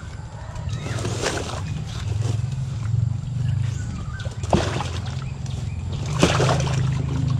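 Water splashing and sloshing in a sack of live snakehead fish as hands rummage in it and the fish thrash, with sharp splashes about a second in, midway and near the end. A steady low hum runs underneath.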